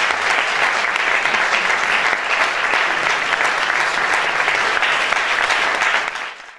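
Audience applauding steadily, dense clapping that fades out near the end.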